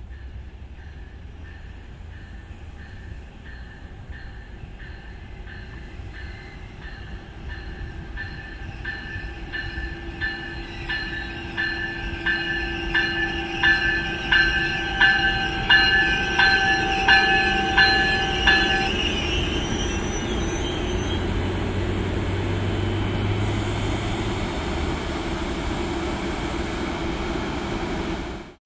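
NJ Transit train approaching, its locomotive bell ringing in a steady rhythm of about three strikes every two seconds and growing louder. The bell stops about two-thirds of the way through, leaving the steady rumble of the train running past.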